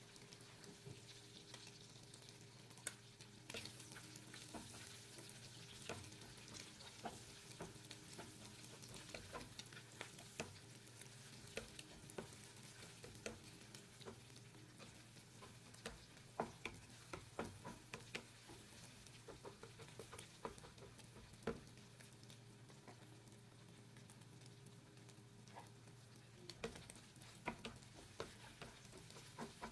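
Eggs and crumbled chorizo sizzling faintly in a nonstick frying pan while a plastic spatula scrambles them, with frequent small clicks and scrapes against the pan over a steady low hum.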